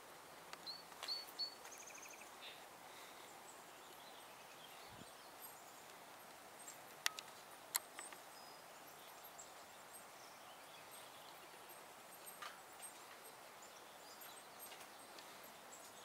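Quiet outdoor ambience with a low steady hiss. There are a few short, high bird chirps in the first couple of seconds, and two sharp clicks about seven seconds in.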